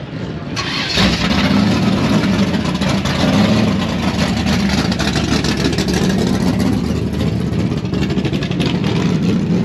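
Stock-class drag racing cars' engines at full throttle on a run down the strip, coming in suddenly about a second in and holding loud and steady.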